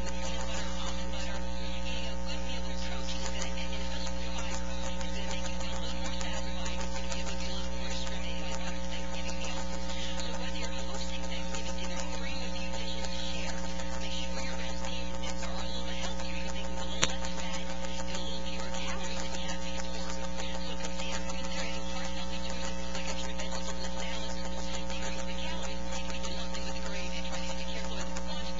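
Steady electrical mains hum with several constant tones over a hiss, unchanging throughout, broken by a single sharp click partway through.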